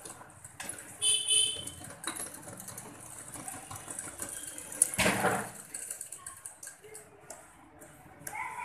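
Sewing machine stitching in short runs, with cloth rustling as the fabric is pushed and turned. A short high-pitched beep sounds about a second in, and a louder rustle of fabric about halfway.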